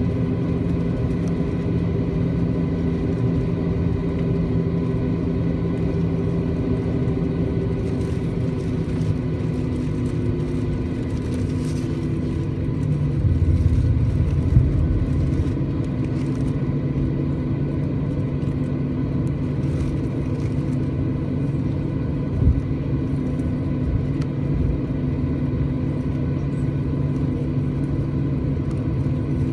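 Cabin sound of a Boeing 737-800 taxiing: the steady hum and whine of its CFM56 jet engines at low taxi power. The engine tone drops slightly about a third of the way in, a louder low rumble swells around the middle, and a single short knock comes later.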